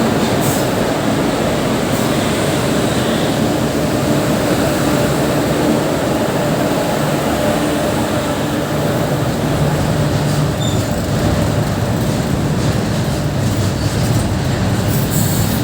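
Goods train passing close by: a steady, loud rumble and rattle of wagon wheels on the rails, with no let-up.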